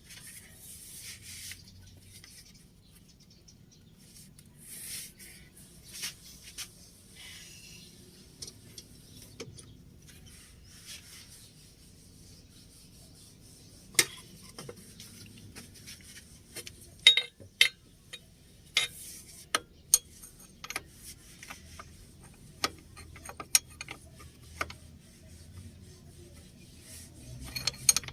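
Hand tools working on metal: irregular sharp clicks and knocks with scraping, rasping rubs in between, the loudest knocks coming in a cluster a little past the middle.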